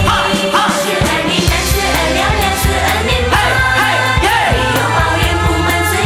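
Pop song with a singing voice and Chinese-language lyrics over a steady beat and bass line.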